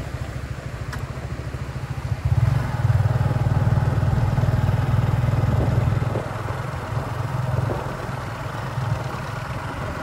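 Motorcycle engine running at steady speed with a low pulsing note. It gets louder about two seconds in and eases back a little after about six seconds.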